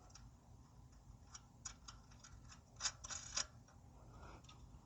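Faint small clicks and rattles of a nut being fitted by hand onto the headlight mounting bolt of an electric bike, with a short cluster of louder clicks about three seconds in.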